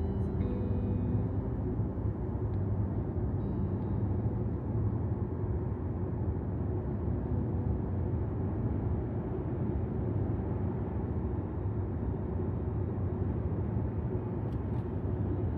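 Car being driven on the road: steady low rumble of engine and tyre noise.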